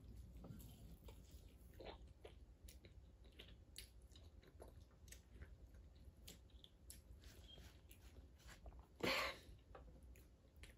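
Faint chewing with small crunches and mouth clicks as a person eats a bite of food. One short, louder sound about nine seconds in.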